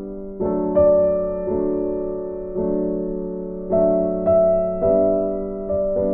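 Background music: a slow keyboard piece in a piano sound, with chords struck about once a second and left to fade.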